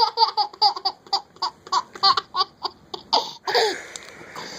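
A young child laughing hard in a rapid string of short, high-pitched bursts, about five a second, trailing off into a breathy gasp near the end.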